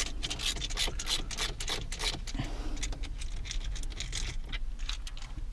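Phillips screwdriver turning out a small screw from plastic dashboard trim: a quick, irregular run of light clicks and scratchy ticks as the bit works in the screw head.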